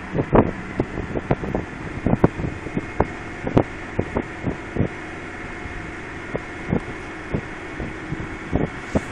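Wind buffeting a phone's microphone: a steady rush broken by many irregular, sharp gusty thumps.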